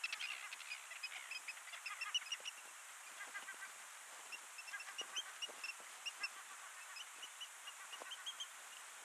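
Birds calling faintly: a quick run of short high notes repeating a few times a second, with a few soft clicks underneath.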